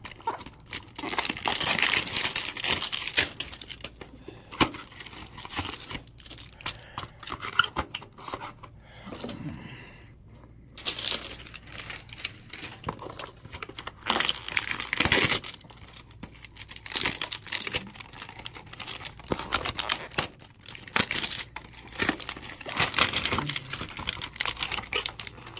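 Plastic wrap on trading-card packs crinkling and tearing in irregular bursts as hanger boxes are opened, with a brief quieter pause about ten seconds in.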